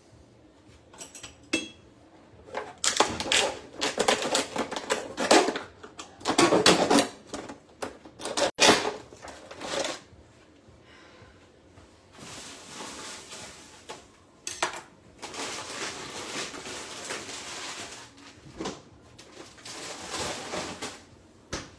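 Plastic wrapping film crinkling and crackling as it is pulled off a wooden crate of oysters, in several loud bursts, then softer rustling over the second half.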